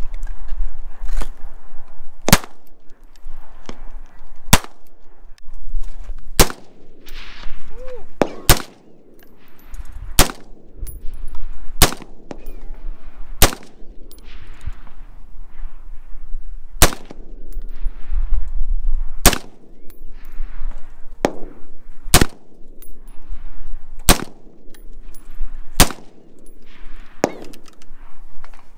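AR-style rifle fired one shot at a time at a slow, uneven pace, a shot every one to two seconds, each followed by a rolling echo. Fainter shots sound in between.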